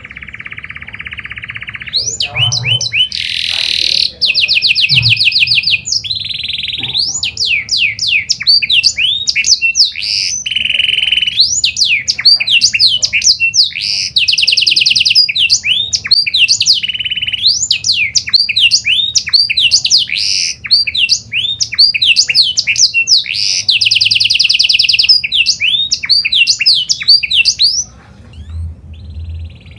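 Grey-and-white pied ('panda') domestic canary singing one long song. After a couple of seconds of softer held notes it breaks into loud fast trills, quick rising sweeps and buzzy rolls, then drops back to softer notes near the end.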